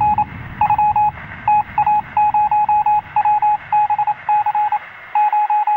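Electronic beep tone at a single pitch, keyed on and off in rapid short pulses and uneven groups, heard through a narrow, phone- or radio-like channel. A low background rumble under it stops abruptly about five seconds in.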